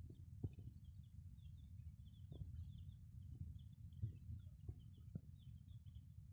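Chicks peeping faintly with many short, high cheeps, while the mother hen gives a few short, low clucks spaced a second or two apart, over a steady low rumble.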